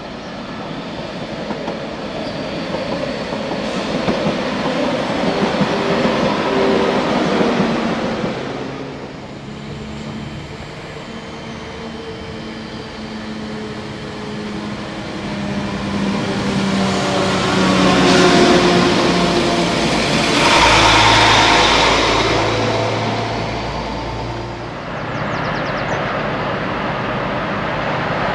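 Northern CAF Civity multiple-unit passenger train running through the station: a steady drive hum over wheel-on-rail noise, loudest as it passes close.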